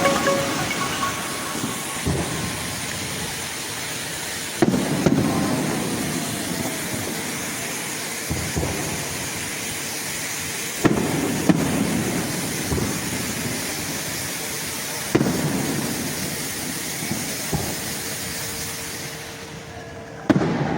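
Aerial fireworks bursting: about ten sharp booms a few seconds apart, each followed by a crackling hiss that slowly dies away.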